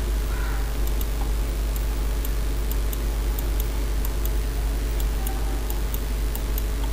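Faint, irregular clicking of a computer mouse, about fifteen clicks spread across the span, over a steady low electrical hum.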